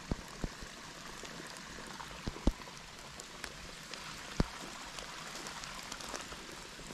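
Steady patter of rain in a wet forest, with a few sharp snaps of twigs underfoot as someone walks over needle litter; the loudest snap comes about two and a half seconds in.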